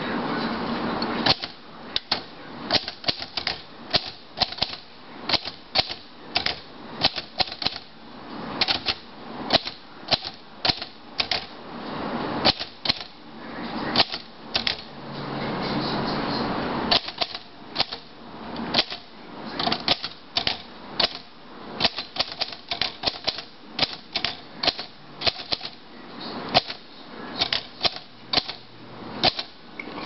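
Royal Quiet De Luxe portable typewriter being typed on at an uneven pace: a long run of sharp keystroke clacks as the typebars strike the hard platen. There are two longer stretches of steady rushing noise, at the start and about fifteen seconds in.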